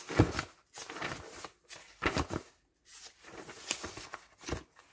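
Books and paper being handled and set down on a wooden desk: bursts of rustling paper with several soft thumps as the books land.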